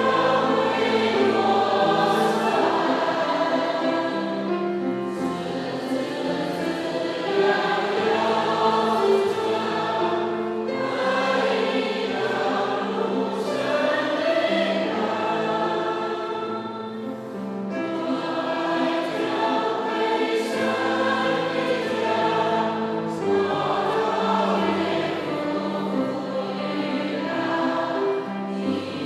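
A church congregation singing a hymn together in Chinese, with many voices on long held notes.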